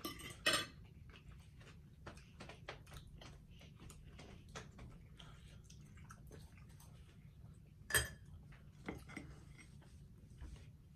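Close-up eating sounds: chewing and mouth smacking on soft pasta, with metal forks clinking and scraping against a ceramic plate and a glass bowl. The sharpest knocks come about half a second in and again about eight seconds in.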